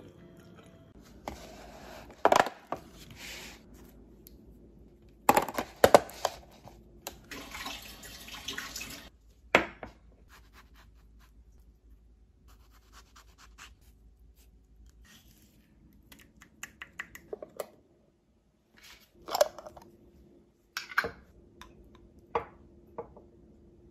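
Kitchen food-prep handling sounds: two stretches of rustling, scraping noise with sharp knocks in the first ten seconds, then a quieter stretch with scattered light clicks and taps. Near the end the taps come from a wooden spoon in a glass pesto jar.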